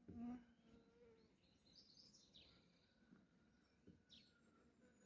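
Faint birdsong: a few short, high chirps from garden birds, with a brief louder low sound at the very start.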